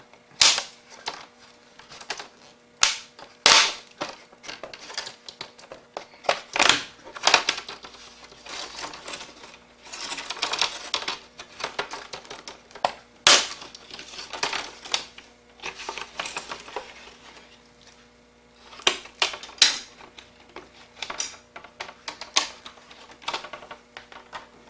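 Plastic clips of a Lenovo G700 laptop's screen bezel snapping loose one after another as the bezel is pried off, with irregular sharp cracks and clicks and plastic scraping between them.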